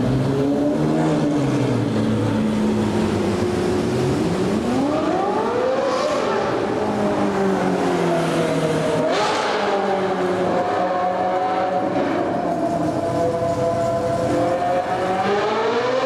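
Ferrari 458 Speciale's 4.5-litre V8 through an aftermarket Fi exhaust, revving hard as the car pulls through a covered concrete roadway. The pitch climbs steeply about four seconds in and again about nine seconds in, holds high, and rises once more near the end.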